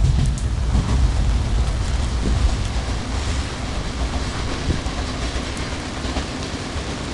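JR Kyushu 305 series electric train pulling away, its low running rumble fading over the first few seconds as it recedes, with the steady hiss of rain underneath.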